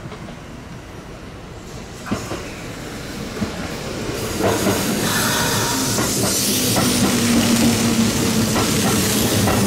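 Kintetsu 2000 series electric train running into the platform close by: after a couple of sharp clicks, its noise grows about four seconds in, with wheels clacking over rail joints, a hiss and a steady hum.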